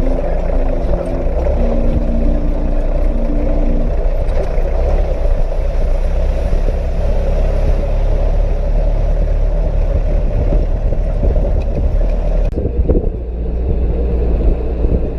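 Offroad 4x4 vehicle driving over rough volcanic ground, with a steady engine rumble and road noise. The upper hiss drops away about three-quarters of the way through.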